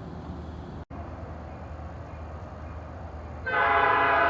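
Freight locomotive's air horn sounding for a road crossing as the train approaches. It comes in suddenly about three and a half seconds in as a loud, steady chord of several notes, after a quieter stretch of background rumble.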